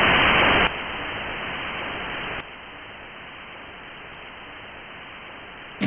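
Television static: a steady white-noise hiss that steps down in loudness twice, about a second in and again a little past two seconds, then cuts off suddenly near the end.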